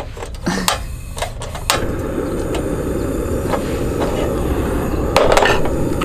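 Portable gas camping stove being lit: a few sharp igniter clicks, then the burner catches about two seconds in and runs with a steady low rushing. A brief knock near the end.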